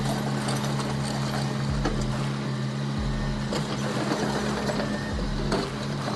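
Heavy machine engine running steadily, a constant low hum with mechanical noise over it.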